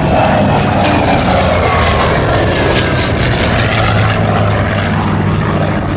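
Grumman F8F Bearcat fighter's radial piston engine and propeller droning loudly as it flies past, with a pitch that falls as the plane goes by.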